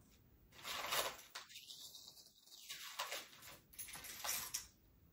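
Jewelry being handled: light clicks, clinks and rustles in irregular short bursts, the loudest about a second in.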